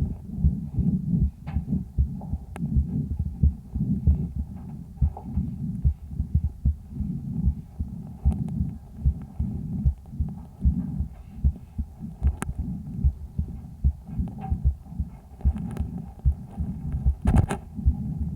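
A sick calf's chest heard through a homemade stethoscope microphone on the left side of the chest on the second day of illness: a steady, rapid throb of heartbeat and breath sounds, low in pitch. A few sharp clicks cut through, the loudest cluster near the end.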